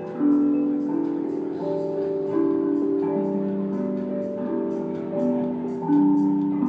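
Slow instrumental soundtrack music of held, overlapping notes that change every second or so, with no beat.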